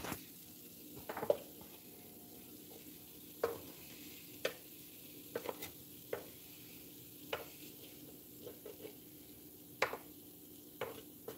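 Breaded spoonbill (paddlefish) strips frying in oil on an electric griddle: a faint steady sizzle broken by sharp pops of spattering oil, roughly one every second or so.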